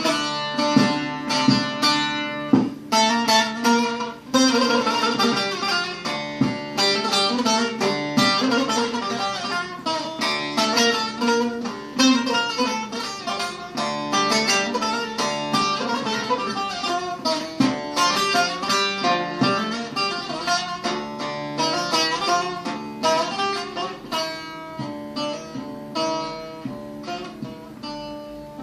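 Instrumental passage of a Turkish folk song on a plucked string instrument: a fast picked melody over steady low drone notes, fading out near the end.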